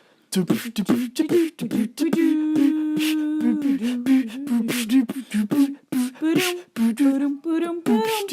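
A person beatboxing: quick mouth-made drum clicks and pops mixed with hummed notes, one of them held for about a second and a half.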